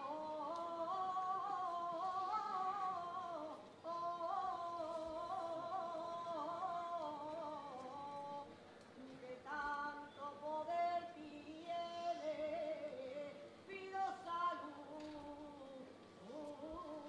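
A single voice singing a saeta unaccompanied: long, heavily ornamented flamenco phrases, with a short break about four seconds in and shorter, more broken phrases in the second half.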